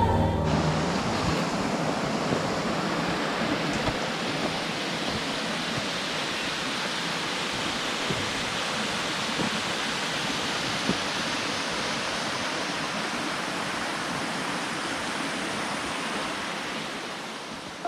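Water falling at a small waterfall, a steady rush of noise that eases off slightly near the end.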